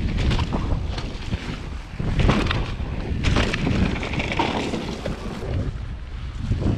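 Wind buffeting the microphone as a mountain bike rides fast over a dirt trail, a loud uneven rumble with scattered knocks and rattles from the bike over bumps.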